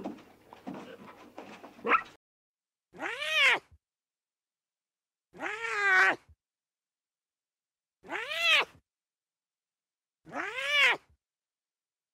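Lion cub mewing: four separate calls about two and a half seconds apart, each rising and then falling in pitch. They follow a short stretch of mixed background sound that cuts off abruptly.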